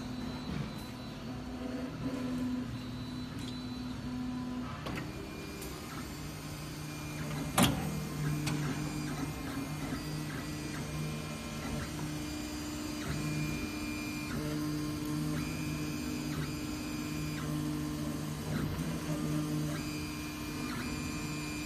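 Large-format MINGDA FDM 3D printer printing, its motors humming in steady tones that change pitch and stop and start as the print head moves. A single sharp click about a third of the way in.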